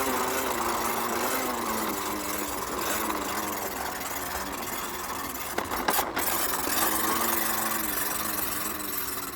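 Battery-powered toy bubble lawn mower running with a steady, slightly wavering motor hum as it is pushed along, with a brief cluster of clicks about six seconds in.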